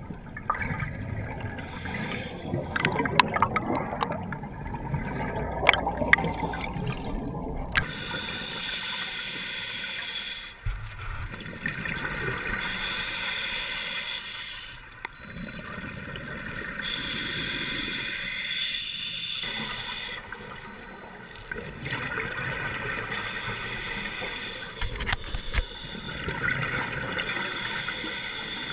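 Underwater scuba breathing: a diver's regulator hissing on each breath and exhaled bubbles gurgling, in cycles of a few seconds. There are scattered sharp clicks over the first eight seconds or so.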